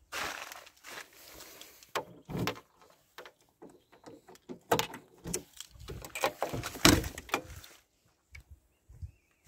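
Driver's door of a 1985 VAZ-2107 Lada being opened by hand: a series of clicks and metal clunks from the handle and latch, loudest about seven seconds in.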